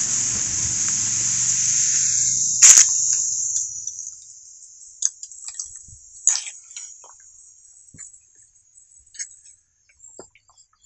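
High, steady insect drone that fades away over the first five seconds or so. It is broken by one sharp click a little under three seconds in, then scattered faint ticks and clicks.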